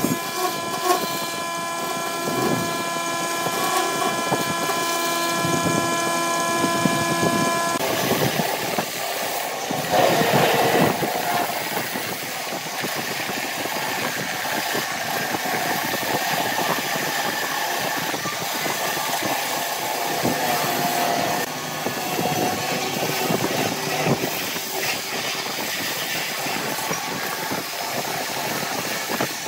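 Wood lathe running while a hand-held turning tool cuts a spinning wooden cup, a rough scraping of steel on wood over the machine's steady hum. About eight seconds in, the steady whine drops away and the cutting continues rougher and noisier.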